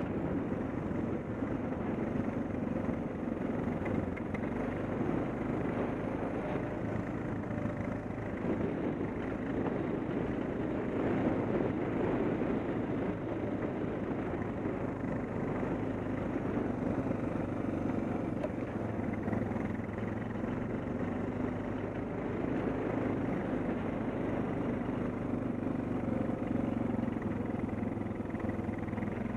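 Suzuki DR650's single-cylinder four-stroke engine running steadily at low speed under way on a rough dirt road, mixed with road and wind noise.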